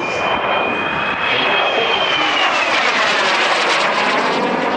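Aermacchi MB-326 Impala's Rolls-Royce Viper turbojet whining and rushing as the jet flies past, its high whine falling in pitch about halfway through.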